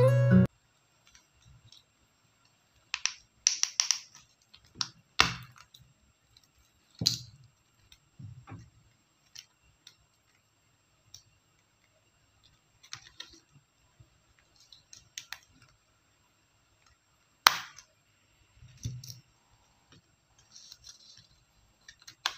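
Hands handling a small clear plastic journal and its paper inserts: scattered sharp clicks and taps of plastic with short bits of paper rustling, the loudest click about three-quarters of the way through.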